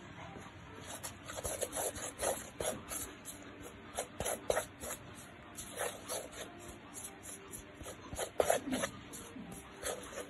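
Flour, salt and water being stirred into dough in a bowl: short, irregular scraping and squeaking strokes.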